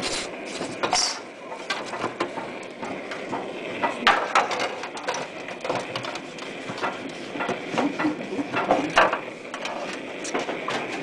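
Zinc sheet flashing being handled and pressed into shape by hand: irregular light knocks and clicks of the thin metal, with a sharper cluster about four seconds in and another near nine seconds.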